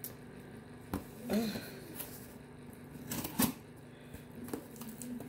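Scissors and a cardboard parcel being handled as the package is opened: a few sharp clicks and scrapes, one about a second in and the loudest around three and a half seconds in.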